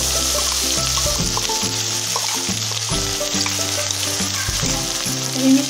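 Hot oil sizzling steadily around a freshly added ground masala paste frying in a metal kadhai, at the stage of frying until the oil separates. Background music plays along with it.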